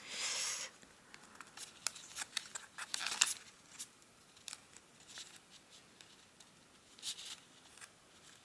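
Square of origami paper being folded and creased by hand: a brief rustle as it starts, then light crackles and ticks of the paper bending, thickest about three seconds in and again near the end.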